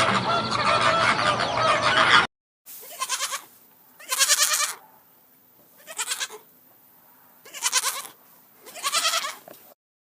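Flock of geese honking densely for about two seconds, cut off abruptly. After a short silence, a goat bleats five times, each bleat wavering and under a second long, with pauses between them.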